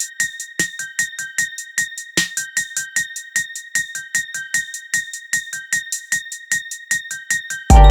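Electronic background music: quick, evenly repeated high keyboard notes, with a loud, deep bass coming in near the end.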